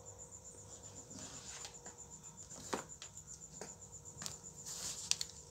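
A cricket trilling steadily in a high, evenly pulsing tone, with a few light knocks and a brief rustle as someone moves about.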